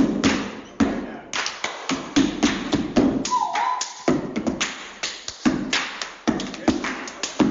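A group of step dancers performing a stepping routine: a fast, rhythmic run of sharp foot stomps and hand claps.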